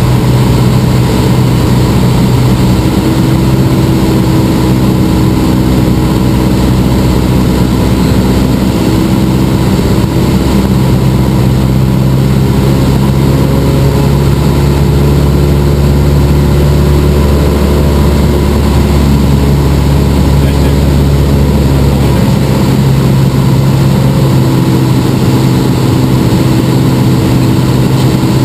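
Cessna 172M's four-cylinder Lycoming engine and propeller running steadily in flight, heard from inside the cabin. The tone shifts a little around the middle, and the deepest hum drops away about three-quarters of the way through.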